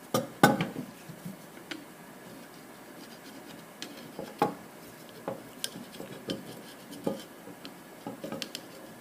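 Metal tool clinking and scraping against a GM Quadrajet carburetor body while residue is cleaned out of its bottom: scattered sharp clicks and knocks, loudest in the first second, then single taps about once a second.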